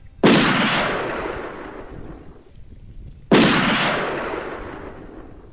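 Two loud booms about three seconds apart, each starting sharply and rolling away over about two seconds.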